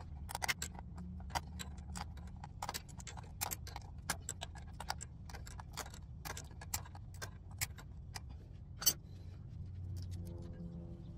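Irregular light metallic clicks and ticks of pliers and a wrench working on a steering rack's boot clamp and inner tie-rod joint, with one sharper click about nine seconds in, over a low steady hum. Music comes in near the end.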